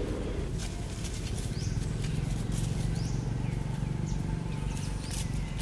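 Outdoor ambience: a steady low hum, with short high chirping calls about once a second. Scattered clicks and rustles of dry leaves are heard too.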